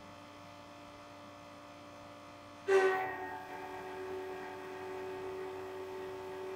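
Tormach 1100M CNC mill starting into its job: a faint steady machine hum, then a steady whine that comes in suddenly about two and a half seconds in and holds at one pitch.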